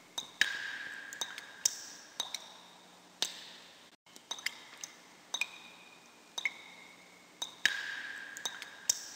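Water drops falling one at a time, about two a second at uneven spacing, each a sharp plink and some leaving a short ringing tone. The sound cuts out briefly about four seconds in.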